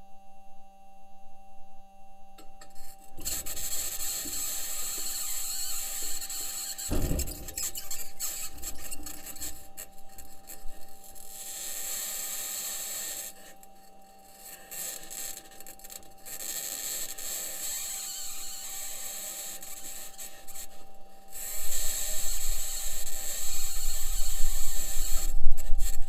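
Perseverance Mars rover driving, heard through its entry, descent and landing microphone: a high-pitched scratching noise that comes and goes in long stretches over a steady faint hum. Engineers think the scratching may be electronic interference or the wheels and suspension working against the ground. Near the end, low rumbling and knocks from the wheels and suspension on the surface grow louder.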